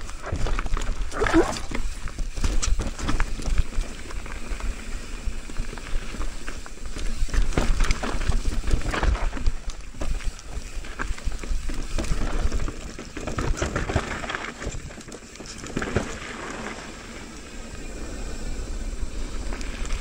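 Mountain bike descending a dry, loose downhill trail: tyres crunching and sliding over dusty dirt, with irregular knocks and rattles from the bike over bumps, easing off somewhat about two-thirds of the way through.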